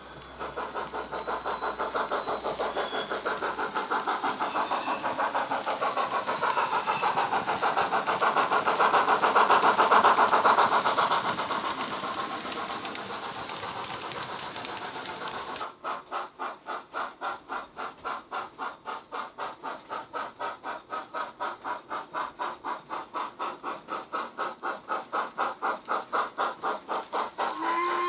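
Digital steam sound of a Princess Coronation Class locomotive, an SWD sound file played by a DCC sound decoder through a tiny flat speaker in a Hornby OO model's tender: rhythmic exhaust chuffs as the engine runs at speed. The chuffing grows loudest about ten seconds in as the model passes, changes abruptly about sixteen seconds in to a steady beat of two to three chuffs a second, and a steady whistle tone starts right at the end.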